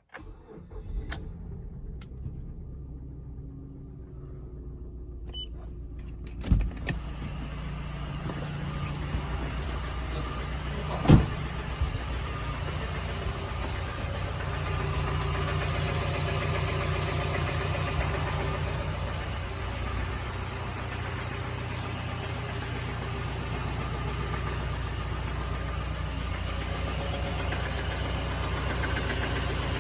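Mazda CX-7 2.3 L turbocharged four-cylinder engine running with a knock from badly worn crankshaft bearings (rod knock), the wear confirmed when the engine was opened. Two short, loud thumps stand out, about six and about eleven seconds in.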